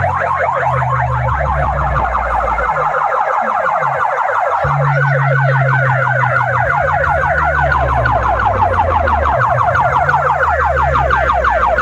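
Banks of DJ horn loudspeakers blaring a loud electronic siren-like effect: rapid repeating chirps over a deep bass line that steps between notes. The bass drops out for about a second and a half a few seconds in, then returns.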